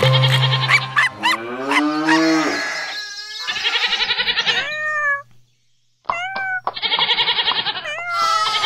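Cartoon animal voices one after another: a cow mooing and a cat meowing, with a short silence just after the middle. Children's-song music plays for about the first second.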